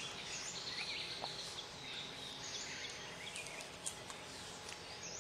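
Wild forest birds calling with short chirps and whistles, several at once, over a faint steady hiss of forest ambience.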